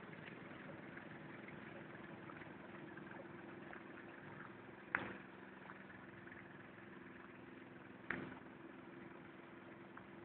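Engine of a Mobitrac amphibious machine running steadily while it pumps sludge: a faint, even hum. Twice a sharp knock cuts through it, about five seconds in and again about eight seconds in.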